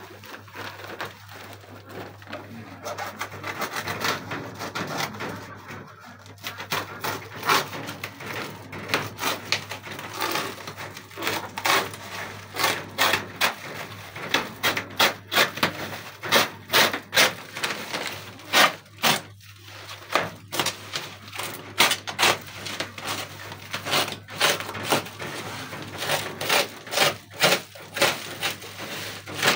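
Green plastic wrapping film crinkling and rustling under the hands as a tall package is handled and wrapped, with many short, sharp rasps and crackles coming in quick irregular runs.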